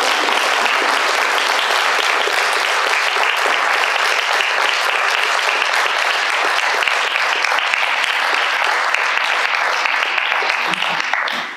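A small group of people applauding steadily, dying away near the end.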